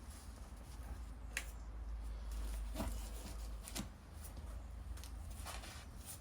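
Faint scattered knocks and scrapes, about five in all, over a low rumble: parts being handled as a van's gearbox is manoeuvred back into place against the engine.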